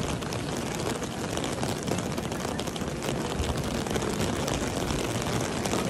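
Steady heavy rain falling on a wide, wet stone pavement, with a faint murmur of crowd voices beneath.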